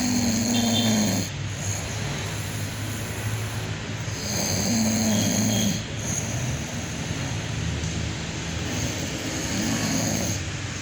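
A person snoring while asleep: three long snores about four seconds apart.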